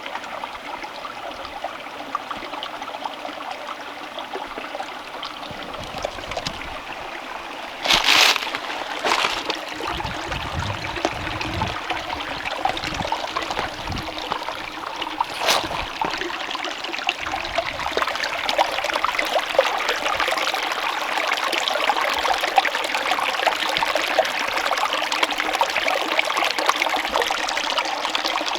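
Small mountain creek trickling and splashing over rocks, a steady rush that grows louder in the second half. Two brief knocks cut in, one about a third of the way in and one about halfway.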